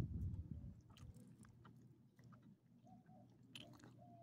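Small dog chewing and mouthing pieces of hot dog, with faint small clicks from its mouth. A low rumble is loudest in the first second, then fades.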